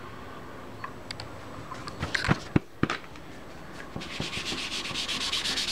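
A few sharp knocks about two seconds in, then from about four seconds on quick, rhythmic back-and-forth rubbing of a cotton ball working powdered pigment into the painting's background.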